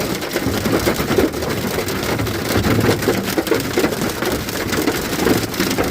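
Heavy storm rain pelting the outside of a car: a loud, steady, dense patter of drops striking the body and glass.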